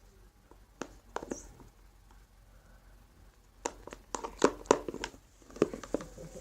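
Light knocks and clicks of objects being handled on a table: a couple about a second in, then a quick flurry in the second half.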